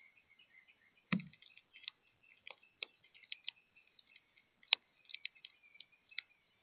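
Irregular sharp clicks and taps of birds working at a seed feeder, with faint chirps in between; a heavier thump about a second in.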